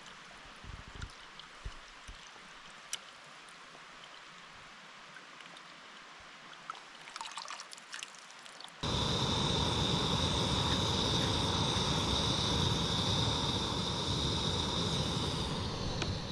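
A faint stream trickling with a few small clicks. About nine seconds in, this gives way abruptly to the loud, steady hiss of a camp stove burner, with a thin whistling tone in it, as it heats water to the boil.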